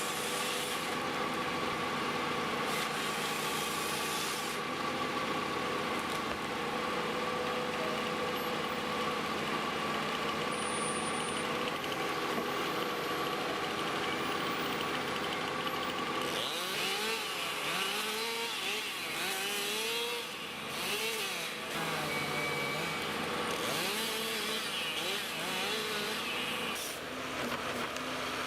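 Heavy forestry logging machine at work: its engine runs steadily under a constant whine, and from a little past halfway, repeated rising-and-falling whines come and go.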